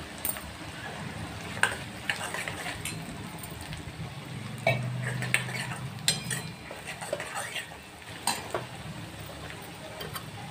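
Steel ladle stirring onions frying in hot oil in a black wok, with a steady sizzle and scattered scrapes and clinks of the ladle against the pan.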